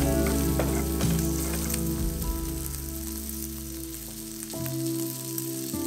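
Diced bacon and minced garlic sizzling in olive oil in a frying pan, stirred with a wooden spatula. Soft background music with held notes plays over it.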